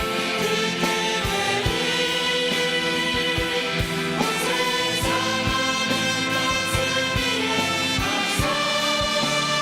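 Choir singing a worship song over a band, with sustained chords and a steady drum beat.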